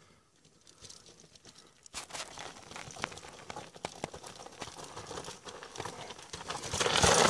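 Mountain bike tyres crunching and clattering over loose rock and gravel as a rider descends toward the microphone, with many small clicks and rattles. It starts about two seconds in and grows much louder near the end as the bike comes close.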